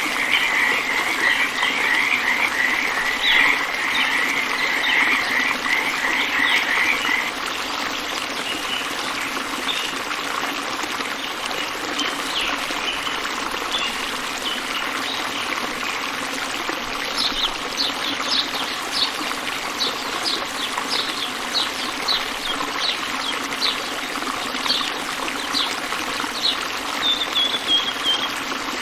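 Animal calls over a steady rush of running water: a fast pulsing trill for about the first seven seconds, then a string of short, high chirps from a little past halfway.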